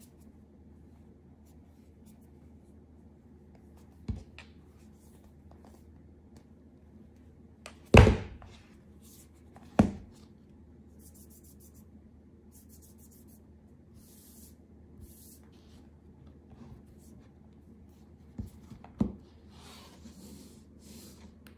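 Aluminium-bodied iPad Air tablet handled on a tabletop: a few dull knocks as it is set down and turned over, the loudest about eight seconds in and two close together near the end. Faint rubbing of hands sliding over the tablet and mat comes in the second half.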